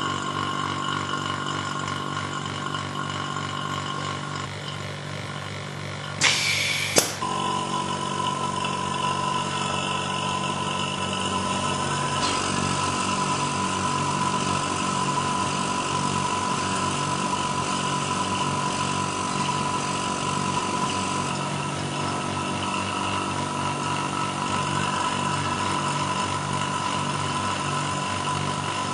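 Indutherm MC15 induction casting machine running its gas-purge washing cycle, with a steady machine hum and a high whine as its vacuum pump draws the chamber down. About six seconds in, a short sharp hiss ending in a click marks a valve venting the chamber's gas pressure.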